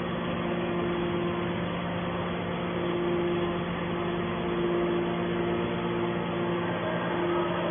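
Fully automatic horizontal hydraulic baling press running: a steady machine hum with a low constant tone and a higher tone that fades in and out.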